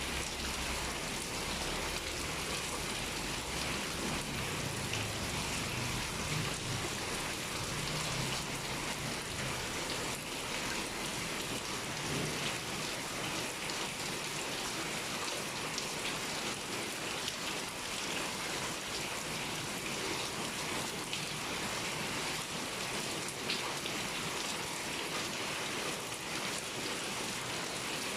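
Heavy rain pouring steadily, a constant dense hiss of drops hitting surfaces. A low rumble sits under it for the first several seconds and fades out about nine seconds in.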